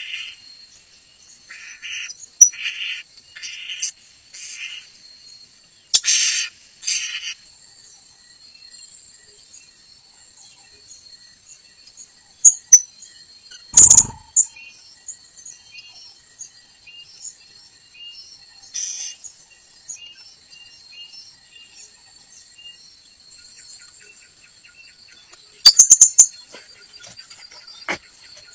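Outdoor ambience of insects trilling steadily at a high pitch, with short, high bird chirps in quick groups during the first few seconds and scattered single chirps after. About halfway through there is one loud sharp knock.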